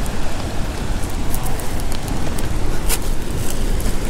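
Wind buffeting the microphone in a wavering, low rumble, with footsteps crunching and snapping through dry ice plant and loose stones, a few sharp cracks about a second and a half in and near the end.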